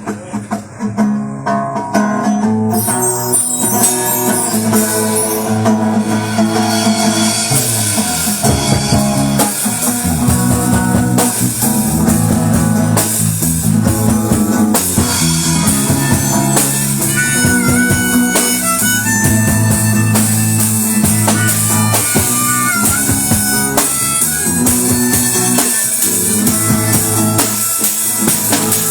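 Live band playing an instrumental intro in a reggae/MPB style: acoustic guitar, bass and drum kit with percussion, a harmonica line on top. The full band comes in about two seconds in.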